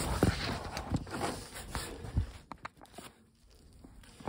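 Rustling of a hoodie and a hand-held phone being moved about, with a few soft thumps in the first two seconds and some light clicks, then it goes quiet.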